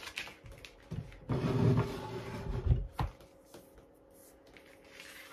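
Rustling and handling noise as a cloth body tape measure is pulled and wrapped around the chest, loudest for a couple of seconds, followed by a single sharp click about three seconds in and fainter rustles after.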